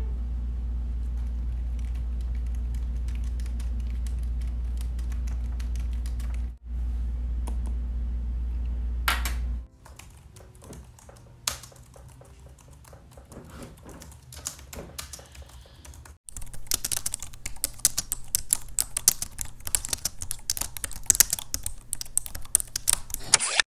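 Typing on a pink Jelly Comb Bluetooth keyboard with round keycaps. For the first ten seconds the taps are soft and muffled through a silicone key protector, under a steady low hum. From about sixteen seconds in the key clicks grow louder and brighter.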